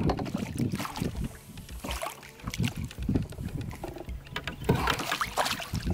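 Landing net splashing through lake water as a crappie is scooped up beside a boat, with irregular splashes and knocks that are busiest near the end.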